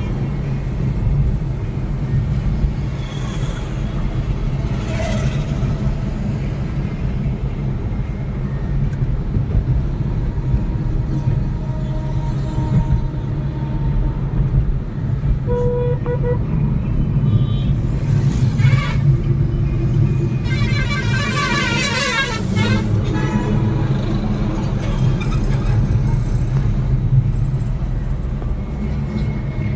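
Steady low road and engine rumble heard from inside a moving car's cabin on a highway, with traffic horns honking several times; the longest horn sounds about two-thirds of the way through.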